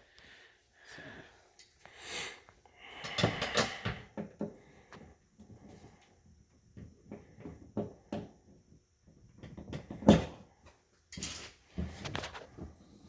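Scattered clicks, knocks and rattles of a car door's handle parts and latch linkage being handled and fitted, with the loudest knock about ten seconds in.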